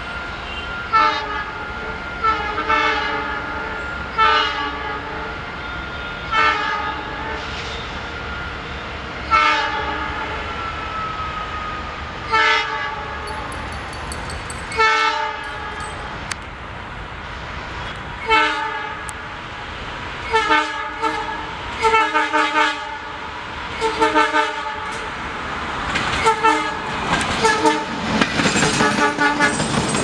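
Horns of twin WDG3A diesel locomotives hauling a goods train, blown over and over in short honks, some in quick pairs or runs, coming faster as the train nears. In the last few seconds the locomotives pass close, with loud engine noise and clatter of wheels on rail.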